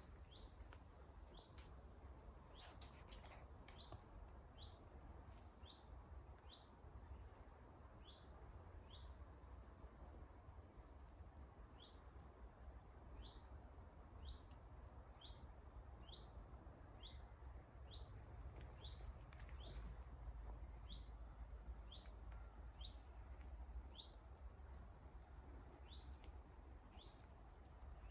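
A small bird calling steadily: a short, high, upslurred note repeated about once a second, with a couple of higher, sharper calls about 7 and 10 seconds in. A faint low rumble sits underneath.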